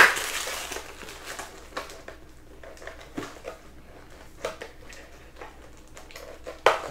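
Trading cards and card packs being handled on a table: scattered light clicks and taps as cards are stacked and set down, with a sharper tap at the start and again near the end.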